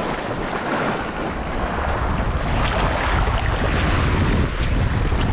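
Wind buffeting the microphone with a steady low rumble, over small sea waves washing onto the shore.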